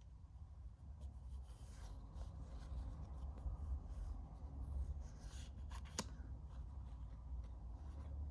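Soft rustling and rubbing of trading cards and their pack wrapper being handled, with one sharp click about six seconds in.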